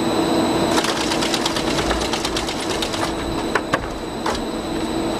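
Mobile filter press machinery running while the press is open: a steady hum under a rapid mechanical rattle, with a few sharper clicks about three and a half to four and a half seconds in.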